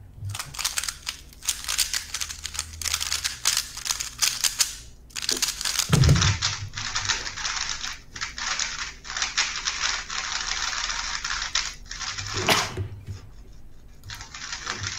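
3x3 speed cube being turned very fast by hand: a dense, rapid clatter of clicking layer turns. A low thump about six seconds in, then more fast turning, with a sharp knock near the end.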